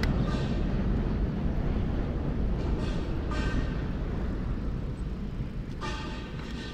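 Low rumble of passing traffic slowly fading away, with three separate high squealing tones, each about a second long, the last near the end.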